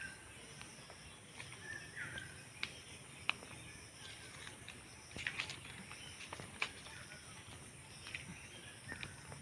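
Outdoor natural ambience: a steady high insect drone, a short bird call repeating a few times, and scattered sharp clicks and knocks.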